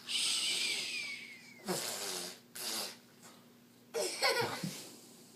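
A man's exaggerated, playful fake snoring: a long hissing breath over the first second and a half, then a few short noisy breaths, the loudest about four seconds in.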